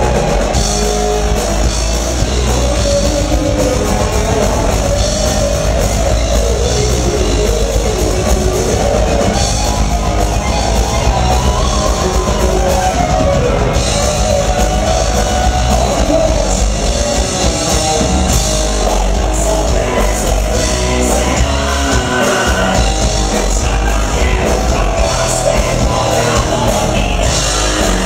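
Rock band playing live at full volume, with drums, electric guitars and singing, recorded from within the audience.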